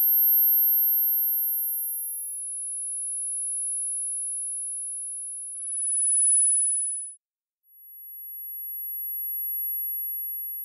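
Very high single steady tones between 10 and 13 kHz, each swelling in and fading out over a few seconds and overlapping the next: tinnitus neuromodulation tones. The highest tone fades out about two seconds in while a slightly lower one holds. A third tone sounds briefly around six seconds in, then after a short silence another tone fades in.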